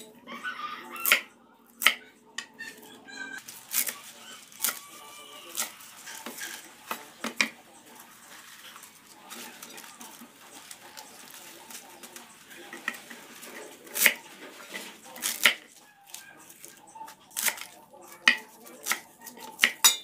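Kitchen knife chopping mustard greens (sawi) stalks and leaves on a wooden cutting board: irregular sharp knocks of the blade striking the board. The knocks come in bunches, with a quieter stretch in the middle.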